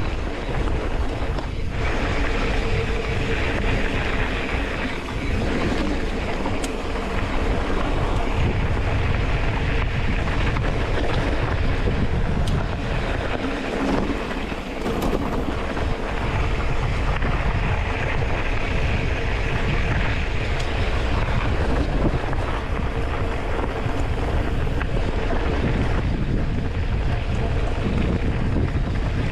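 Wind buffeting a ride-along camera's microphone during a mountain-bike ride, a steady rushing rumble with a heavy low end.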